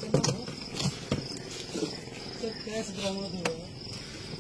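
Scattered knocks and clicks as hands work at a spare wheel's tyre and rim and handle bundles of banknotes, over a steady insect trill. Low voices murmur about three seconds in.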